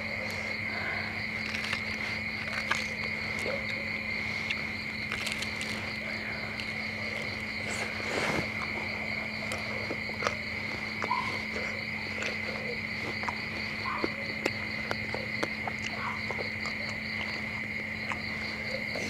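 Crickets chirping loudly and steadily in a constant night chorus, with a faint low hum underneath. Scattered soft clicks and crunches come from eating close to the microphone.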